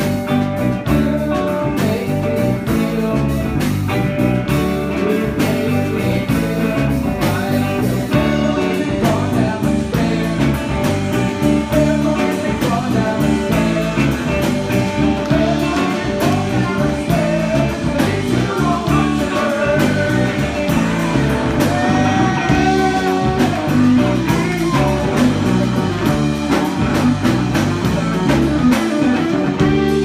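Live jam-band rock played by a full band: electric guitar, electric bass and keyboard over a drum kit, with steady cymbal ticks keeping time.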